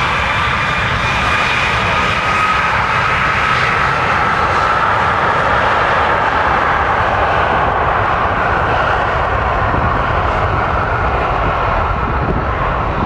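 Aircraft engines running loudly, a steady rushing noise with a whine that slowly rises in pitch over the first few seconds, then fades into the rush.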